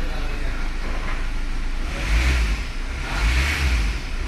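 Kia Seltos diesel engine idling, then revved in short repeated blips about every second and a half from about halfway through.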